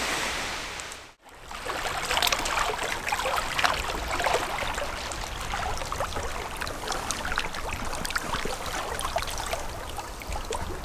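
Small lake waves lapping and splashing against shoreline rocks: a steady wash dotted with irregular little splashes. It begins after a brief silence about a second in.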